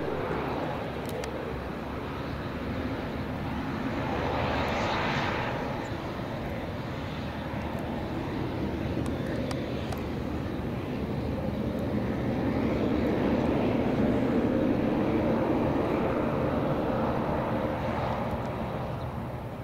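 Twin turboprop engines of a Beechcraft King Air 350ER (RCAF CE-145C Vigilance) running as it rolls along the runway after touchdown: a steady propeller drone over a low hum, swelling about four seconds in and again from about twelve to seventeen seconds, then fading as it moves away.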